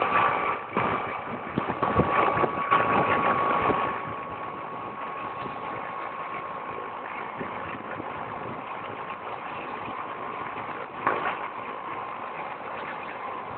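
Small turbine helicopter engine running at idle, a steady whine under a hum. For the first four seconds there is louder, uneven noise; after that the whine runs on evenly.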